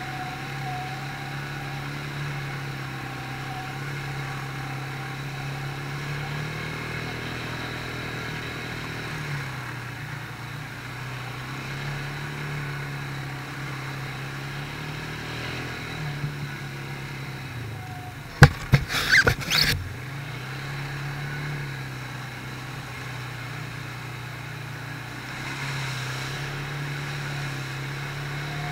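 Quad bike engine running steadily under way, its pitch dropping and rising again several times with the throttle. A quick cluster of sharp knocks about two-thirds of the way through is the loudest moment.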